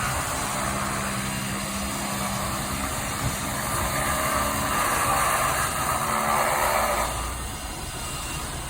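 Engine running steadily, easing off about seven seconds in.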